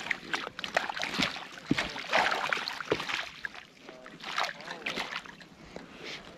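Water splashing and dripping around a landing net held in the lake beside a float tube, with a netted trout in it, and small knocks of the net being handled.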